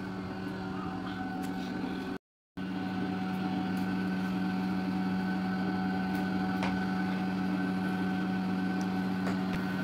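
A steady mechanical hum of constant pitch, cutting out briefly just after two seconds in, with a few faint clicks.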